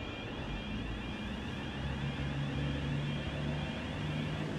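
Diesel train engine running steadily, a low hum that strengthens about two seconds in, with a faint high whine above it.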